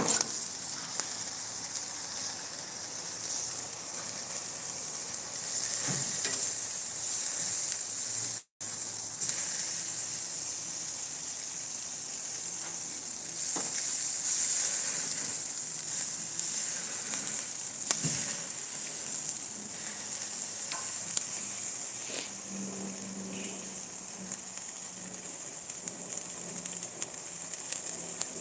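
Steaks and sausages sizzling over a charcoal grill, a steady hiss with scattered faint pops as fat renders and drips onto the coals. The sound cuts out for an instant about eight seconds in.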